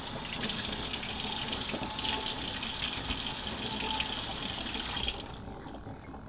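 Thin stream of water from an old Delta kitchen faucet splashing steadily into a stainless steel sink, cutting off suddenly about five seconds in.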